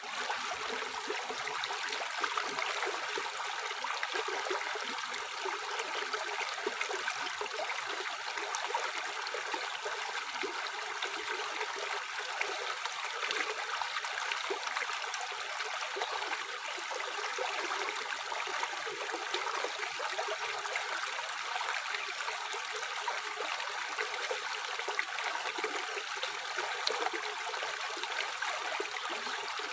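Tap water running into a sink: a steady, unbroken splashing stream.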